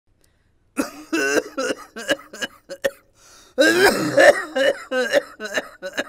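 A man coughing hard in two bouts of hacking and throat-clearing, the first starting about a second in and a heavier one from the middle on. It is the persistent cough of a beedi smoker, which medicines have not cured.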